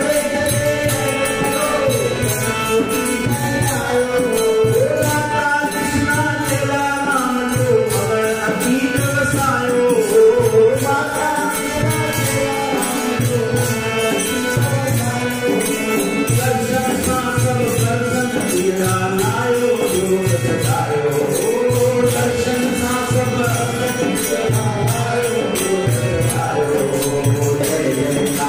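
A Sindhi devotional bhajan sung to harmonium, with voices chanting the refrain over a steady hand-drum beat and high rattling percussion.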